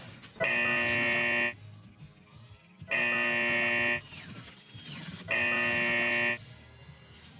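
Emergency Alert System SAME header: three identical harsh, buzzy data bursts of about a second each, a second and a half apart, which encode the alert before the attention tone.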